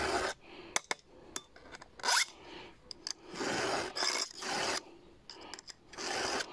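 A round file stroked across the cutter teeth of a chainsaw chain: three rasping file strokes, the first with a brief rising squeal and the second the longest, with light metallic ticks between them.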